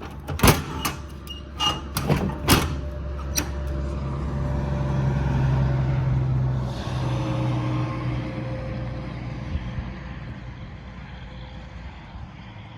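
Several sharp knocks in the first few seconds, then a vehicle engine's steady hum that swells for a few seconds and fades away.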